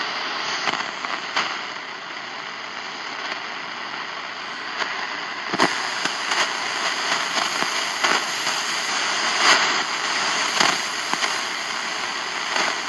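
Shortwave radio receiver hissing with static between stations, with irregular sharp crackles and clicks and faint steady whistles in the noise; the signal being searched for has been lost.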